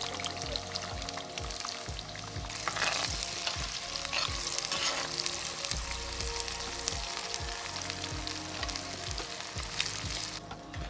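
Potato sticks sizzling and crackling as they fry in hot oil in a glazed clay pan, with a spatula scraping and stirring through them. The sizzle is loudest a few seconds in and cuts off just before the end.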